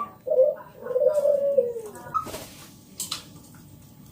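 Zebra dove (perkutut) cooing: a short note, then a longer coo that slides down at its end, followed by a few faint clicks.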